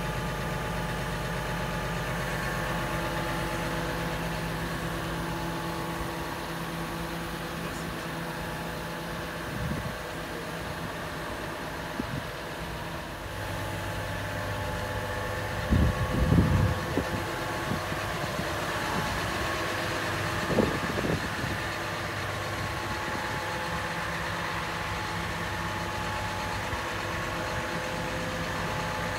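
Cat 323 hydraulic excavator's C7.1 diesel engine idling steadily. A few brief low thumps stand out a little past halfway.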